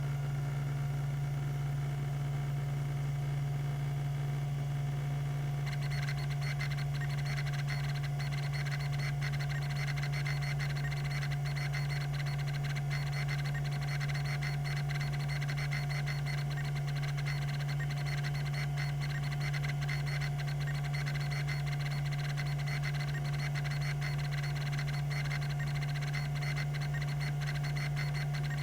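Tandon TM362 hard drive running with a steady spindle hum. About six seconds in, a fast, continuous ticking chatter starts from its rack-and-pinion stepper actuator as the heads seek.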